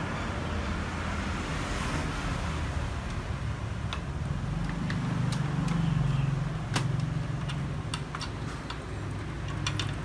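Light clicks and taps of the TV's plastic speaker unit being handled and fitted onto the metal back panel, over a steady low rumble of road traffic that swells around the middle.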